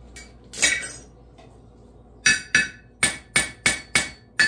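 Hammer striking the bare face of a newer cast anvil with its damping chain removed, so it rings freely. Seven quick blows at about three a second start a little after two seconds in, each a sharp clang with a short bright ring. A metal clank comes earlier, about half a second in.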